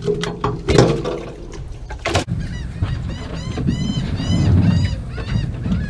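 A few knocks and rustles of handling, then about a second and a half in a rapid run of high, arched gull calls, some four a second, that carries on to the end.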